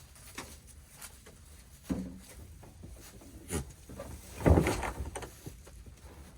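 A few scattered knocks and rubbing sounds, with a sharp thud about two seconds in and a louder thud and scrape about four and a half seconds in.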